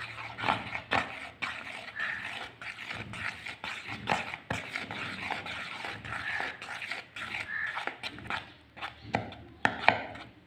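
Plastic spoon stirring thick liquid hand wash in a plastic bowl: irregular clacks and scrapes of the spoon against the bowl, with a few brief squeaks.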